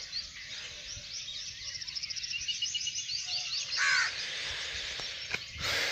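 Many birds chirping and calling together, a busy chorus of quick, high, repeated notes, with one brief louder call about four seconds in.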